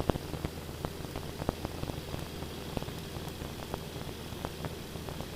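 Radio and intercom static on an aircraft's audio feed: a steady low hum under hiss, with irregular crackling clicks.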